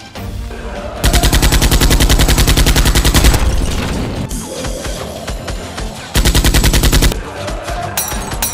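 Two bursts of rapid automatic gunfire over background music: a long burst of about two seconds starting about a second in, and a shorter one about six seconds in. The gunfire is a dubbed sound effect standing in for Nerf blaster fire.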